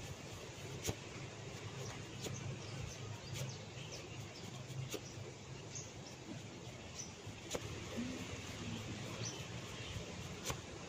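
Several sharp cracking clicks from a head and neck massage, spaced a second or more apart, the loudest near the start and near the end. Birds chirp faintly behind them.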